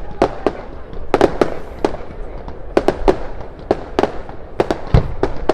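Aerial fireworks shells bursting in quick, uneven succession: about a dozen sharp bangs, each trailing off in echo, with a deeper boom near the end.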